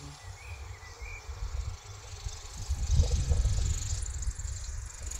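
Radio-controlled 700-size helicopter flying at a distance: a faint steady high hiss from its rotor, over low, uneven rumbling that grows louder about three seconds in.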